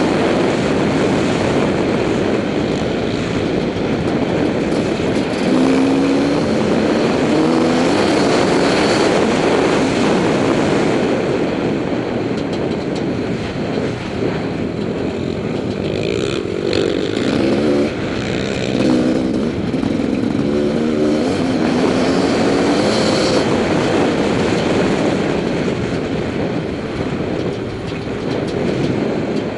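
TM300 two-stroke enduro motorcycle engine at speed, revving up and falling back again and again as the rider works the throttle and gears, with heavy wind noise over a helmet-mounted microphone.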